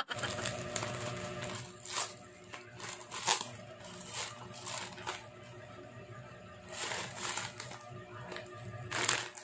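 A plastic courier mailer bag being torn open and crinkled by hand: irregular rustles and short rips, a few of them sharper and louder.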